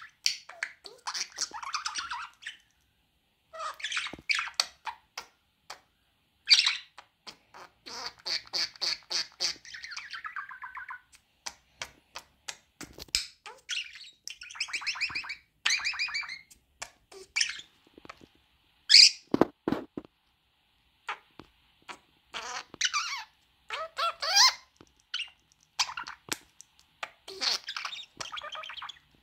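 Budgerigar chattering and warbling in quick bursts, with a few sharper squawks, and a brief low thump about two-thirds of the way through.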